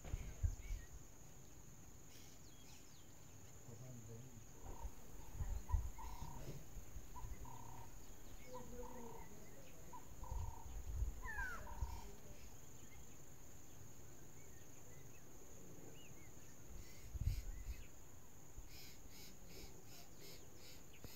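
Quiet bush ambience: a steady high-pitched insect drone, with short repeated bird notes and a quick sweeping call through the middle. There are a few brief low rumbles, and a rapid ticking trill near the end.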